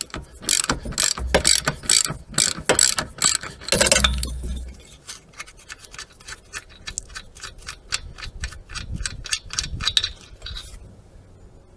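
Ratchet wrench clicking as it undoes the rear wheel hub bolts: louder, spaced clicks for about four seconds, then a faster, lighter run of clicks that stops about a second before the end.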